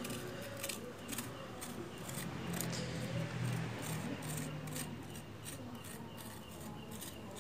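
Putty knife scraping fresh cement plaster in short, irregular strokes, a few a second, gouging the joints between the stones of a stone-pattern render.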